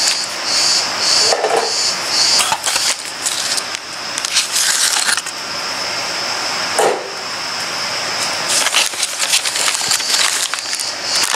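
Plastic packaging crinkling and rustling as sewing machine accessories are unwrapped, with small plastic parts clicking against each other.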